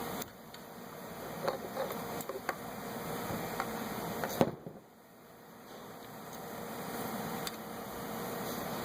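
Light clicks and clinks of metal car parts being handled during a wheel hub swap, with one sharper knock about four and a half seconds in, over a steady background hiss.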